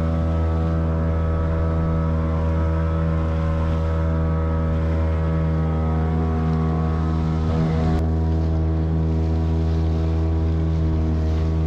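Hangkai two-stroke 6 HP outboard motor running at a steady, even pitch, pushing an inflatable boat along at speed, with water splashing beside the hull.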